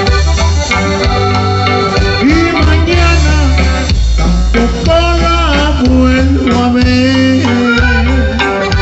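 Norteño-style music: a steady bass pulse under sustained melodic lines, with some singing.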